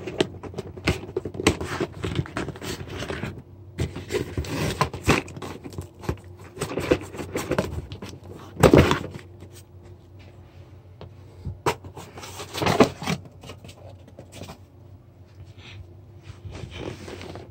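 Cardboard packaging scraping and rustling as a product box is worked out of a shipping box, with irregular clicks and a couple of louder bumps about halfway through and again a few seconds later.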